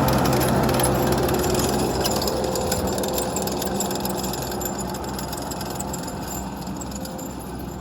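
Diesel engine of a heavy earthmoving machine (excavator or tracked loader) running, growing steadily fainter.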